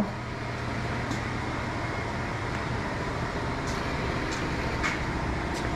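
Steady mechanical hum and hiss with a few faint light clicks.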